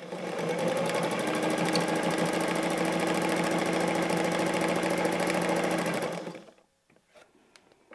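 Electric sewing machine running steadily at speed, its needle stitching rapidly through the layers of a quilted appliqué, then stopping about six seconds in.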